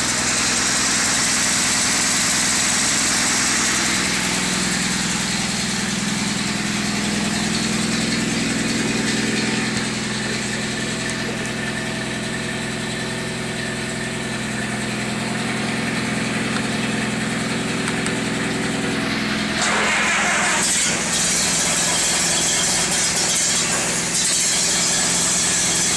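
Classic car engine idling steadily. About twenty seconds in, a louder rush of noise joins and the overall sound steps up.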